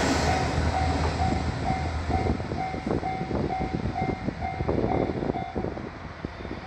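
Level-crossing warning signal ringing in a steady repeated tone about twice a second, stopping a little before the end. Under it the rumble and wheel clacks of the two-car KiHa 66/67 diesel railcar set fade as it moves away.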